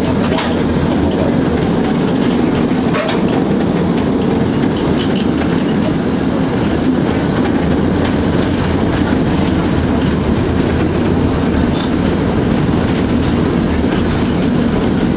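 Inside a Tatra T3 tram as it runs along its track: a steady rumble of wheels on rails, with a few scattered clicks.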